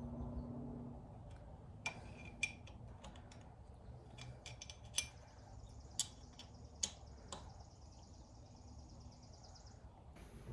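Faint scattered clicks and taps of hand tools and engine parts being handled, about a half-dozen sharp ones in the middle, with a faint high steady tone for a few seconds in the latter half.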